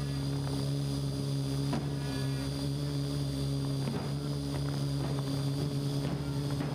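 Parrot AR.Drone 2.0 quadcopter's rotors buzzing steadily, heard close up from the camera mounted on the drone, with a few hand-drum strokes coming through underneath.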